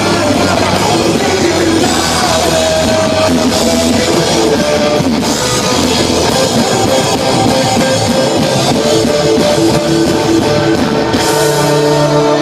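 Live punk rock band playing loud, with distorted electric guitar, bass and drum kit. Near the end the drumming stops and held notes ring on.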